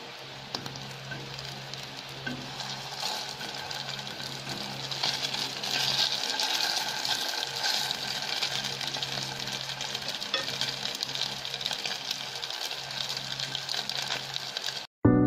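Tuna nuggets sizzling and crackling in hot oil in a frying pan, with a spatula moving them about; the frying grows louder about five seconds in, over a steady low hum. The sound cuts off suddenly just before the end.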